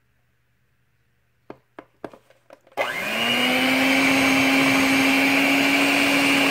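A few short knocks as the stick blender goes into the plastic cup, then its motor starts a little under three seconds in, rising quickly to a steady whine as it blends fragrance oil into the liquid mix of mango butter, shea butter and oils.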